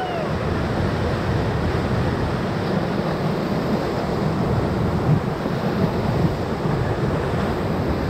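Whitewater rapids rushing and churning around an inflatable raft, a steady loud wash of moving water.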